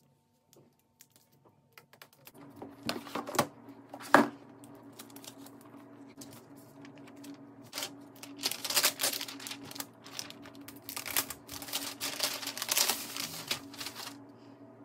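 Unboxing handling of a MacBook Pro and its packaging: scattered clicks and taps start about two seconds in, with one sharp knock about four seconds in. From about eight seconds in come stretches of crinkling and rustling as the laptop is lifted out of its wrap.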